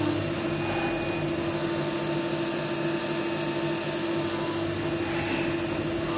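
CNC milling machine spindle running with an end mill cutting a metal workpiece under flood coolant spray: a steady high tone and a lower hum over the hiss of the coolant.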